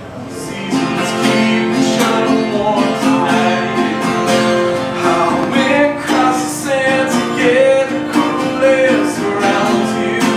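Acoustic guitar strummed steadily, with a voice singing a melody over it.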